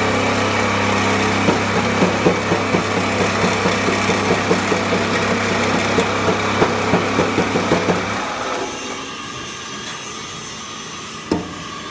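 Motor-driven coffee grinding machine running with a steady hum, with rapid knocks about four a second from the mill. About eight seconds in the hum stops and the noise drops to a quieter steady run, with one sharp knock near the end.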